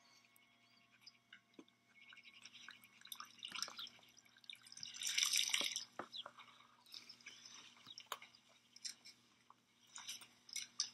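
Eating a pita close to the microphone: faint wet chewing and mouth clicks, with brief rustles of its paper wrapper.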